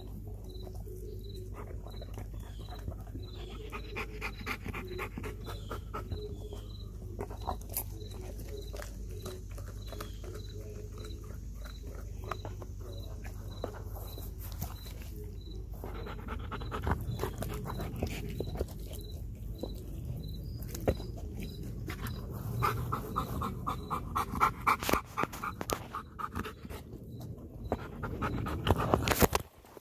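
Belgian Malinois panting hard while it chews and tears at a raw whole chicken, with wet chewing and crunching clicks throughout. The chewing gets louder in the last third as the dog's muzzle comes close.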